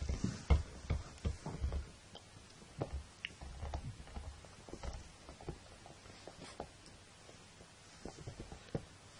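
Soft irregular thumps and rustling as a Sussex Spaniel puppy burrows and nuzzles into a towel. The knocks come thickest in the first two seconds and again near the end.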